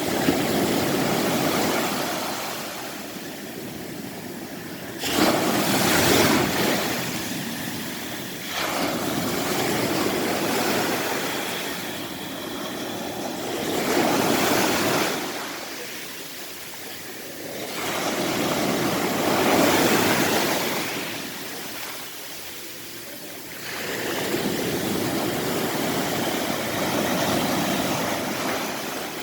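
Ocean waves breaking on a beach, the surf swelling and easing in about six surges, one every four to six seconds.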